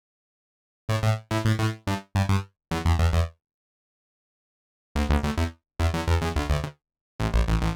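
Background electronic music: short synthesizer phrases of pitched notes, broken by gaps of silence, the longest in the middle.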